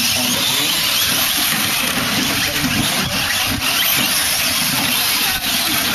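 Several 1/10-scale RC short course trucks racing on dirt: their motors whine up and down in pitch as they accelerate and slow, over a steady noisy hiss.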